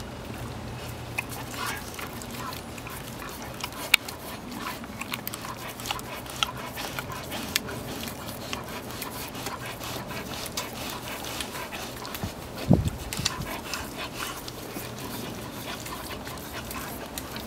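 A husky licking and smacking at an OraPup tongue-cleaner brush held to its mouth: a run of short, wet licks and clicks, with one louder thump about three-quarters of the way through.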